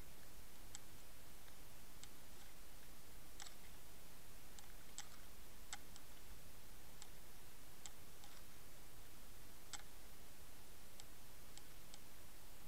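Irregular sharp clicks, about fifteen scattered unevenly, over a steady hiss, picked up by a camera underwater.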